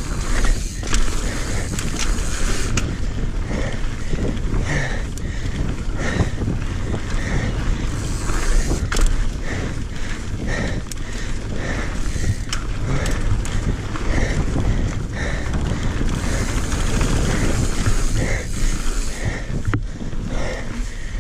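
Mountain bike riding down a dirt trail: steady wind rush on the microphone over the rumble and rattle of tyres and bike on the dirt, with sharp knocks from bumps and roots.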